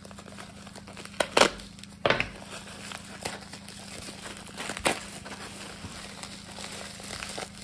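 A plastic shipping pouch crinkling and rustling as it is torn open by hand, with a few sharp crackles standing out, the loudest about a second and a half in.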